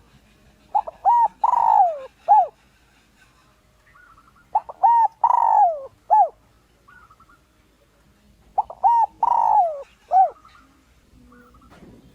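Spotted dove singing its cooing song three times, about four seconds apart, each phrase a few short coos around one long falling note. It is a decoy call meant to draw wild males in to fight. Faint higher chirps sound between the phrases.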